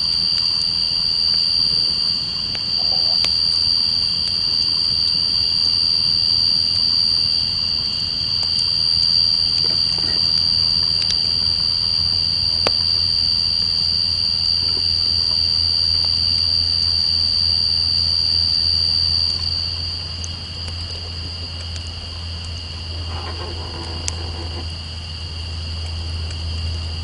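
Night insects trilling in a steady, high, unbroken drone, with a few sharp crackles from a campfire. A low rumble builds in the second half while the highest trill fades a little.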